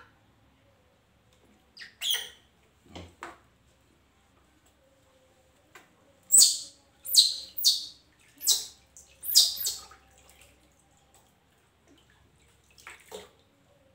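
A baby monkey giving short high-pitched squeals while it is washed, most of them in a quick run about six to ten seconds in, with water splashing as handfuls are poured over it.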